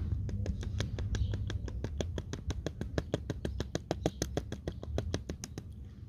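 Gasoline dripping from the outlet of an old, removed fuel filter onto wet pavement: a rapid run of sharp drips, several a second, thinning and getting quieter toward the end.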